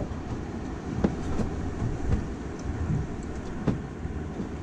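Steady low rumble of wind and water around a small open boat, with several sharp knocks scattered through it.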